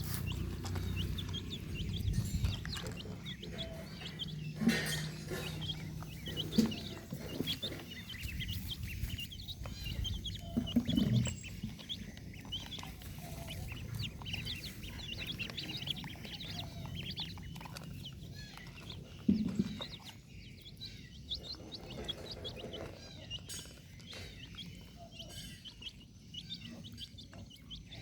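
Many short, high chirps from small birds or chicks, kept up throughout over a low rumble. A few louder short sounds stand out about 5, 6.5, 11 and 19.5 seconds in.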